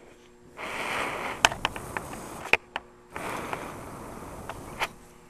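Air blown by mouth through an open gas solenoid valve: two hissing blows of about two seconds each, with a short pause between and a few sharp clicks. The air passing through shows that the valve's second coil has opened.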